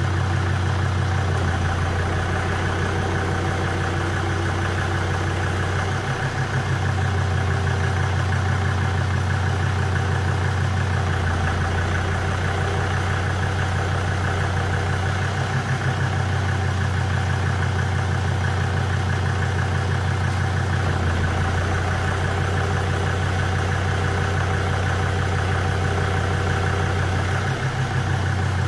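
Volvo V70 D5's 2.4-litre five-cylinder turbodiesel idling steadily, with the note dipping slightly a few times.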